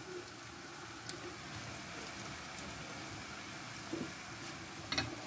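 Diced carrot and onion frying in oil in a pan over high heat: a steady sizzle, with a few faint ticks.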